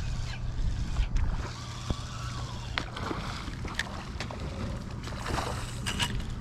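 Kayak paddle strokes splashing and dripping in the water, with wind rumbling on the microphone and scattered small clicks and knocks.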